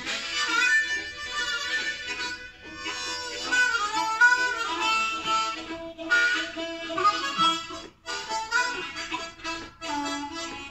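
Three harmonicas playing blues together, notes sliding in pitch over a steady held low note, in phrases with short breaks between them.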